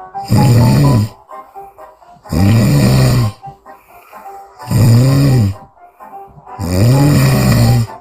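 A sleeping woman snoring loudly, four snores about two seconds apart. Each snore is about a second long, with a buzzing pitch that rises and then falls.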